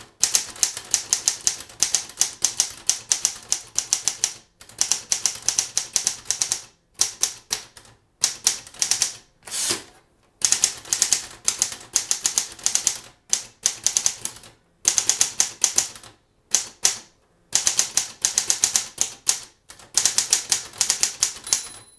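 Corona portable manual typewriter being typed on: quick runs of sharp key strikes, several a second, broken by short pauses.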